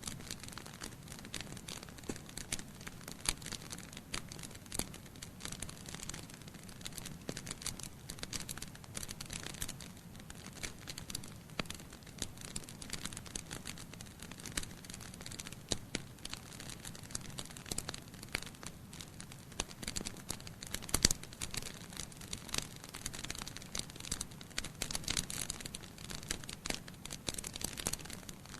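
Wood fire crackling in a fireplace: a dense, irregular run of small snaps and pops over a low steady rush, with one sharper pop about 21 seconds in.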